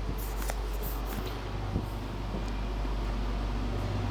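Room tone: a steady low hum with a few faint, soft clicks.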